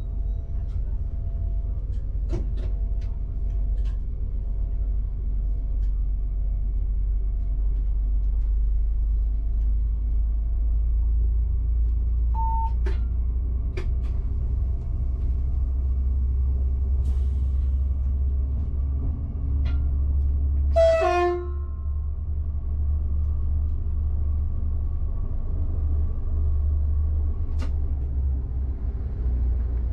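Cab of a Bombardier AGC bi-mode multiple unit pulling away from a stop and gathering speed, with a steady low rumble and hum and scattered clicks from the running gear. One short horn blast about two-thirds of the way through.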